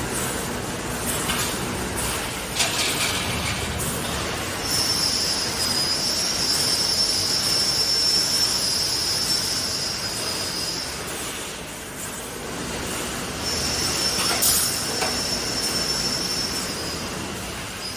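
Automatic wire-mesh welding machine running: a steady mechanical din with a thin high-pitched whine held for several seconds, twice, and a few sharp clicks.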